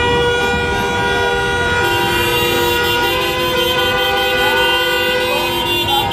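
Many car horns honking together in a street celebration, long held blasts at several different pitches overlapping one another, over the low rumble of idling traffic.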